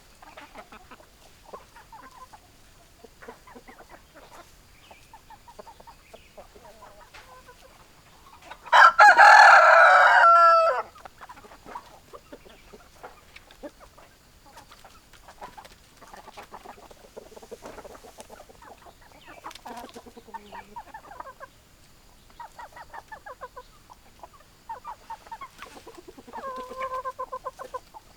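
Chickens clucking softly over and over, with one loud rooster crow lasting about two seconds, about nine seconds in.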